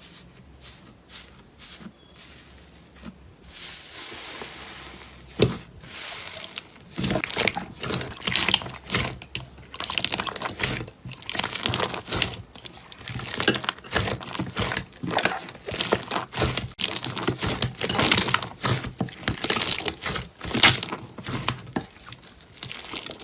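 Crisp crunching and crackling from material being squeezed and worked by hand, in rapid irregular clicks. It is faint and sparse for about the first five seconds, then dense.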